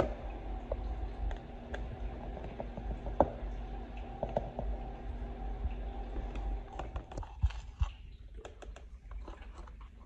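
Light clicks and taps of a measuring cup and spatula against a plastic bowl as flour is scooped, leveled and tipped in, over a steady low hum that stops about seven seconds in. Near the end, small clicks and rustles of a cardboard baking soda box being handled.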